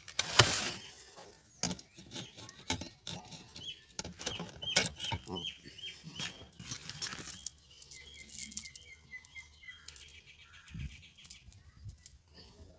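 Irregular clicks and knocks of chainsaw parts being handled, the loudest a sharp knock just after the start. A small bird calls in quick runs of high chirps partway through.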